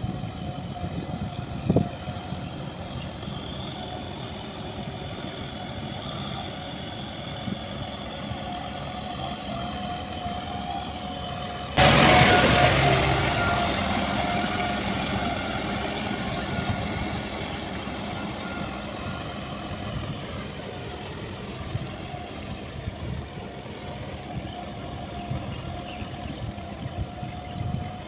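Farm tractor engine running steadily as it pulls a rotary tiller through flooded paddy mud. About twelve seconds in the sound suddenly gets much louder, then fades gradually; a single sharp click comes near the start.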